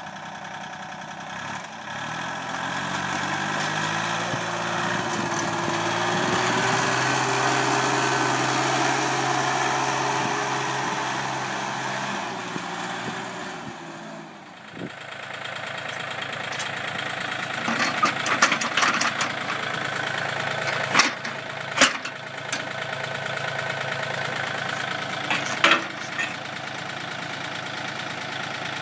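Iseki TU 185 compact tractor's three-cylinder diesel engine speeds up, runs steadily while the tractor works snow with its front blade, then drops off. Later the engine idles steadily while several sharp metal clanks ring out from the snow blade and loader bucket being handled.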